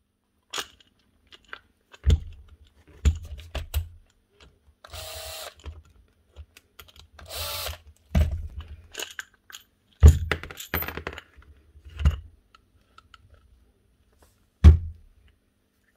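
Bosch 12 V cordless impact driver whirring in two short bursts of about a second each, backing out the screws that hold the nibbler's gear head. Between and after them come several sharp knocks and clunks of the metal head, tool and screws being handled and set down on the bench.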